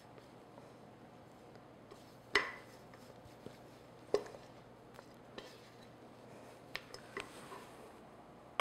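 A spatula knocking against a glass mixing bowl as crumbly shortbread dough is scraped out. There are two sharp knocks about two and a half and four seconds in, then a few lighter taps, with quiet in between.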